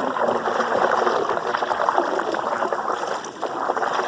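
Floodwater rushing and gurgling steadily as it drains a deep roadside ditch during flash flooding.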